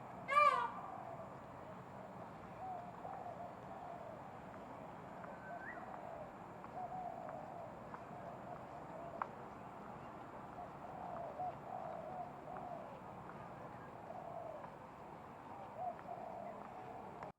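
Birds calling: one loud call falling in pitch right at the start, then soft, low, cooing-like calls repeating on and off throughout.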